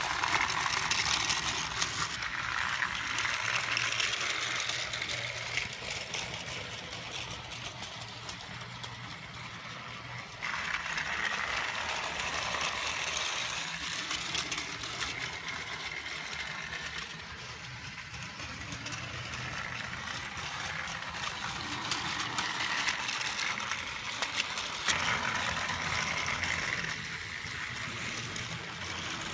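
Trackmaster 2 Hurricane toy engine's small battery motor whirring as it pulls two trucks along plastic track, with the wheels and trucks rattling; the sound swells and fades as the train moves around the layout.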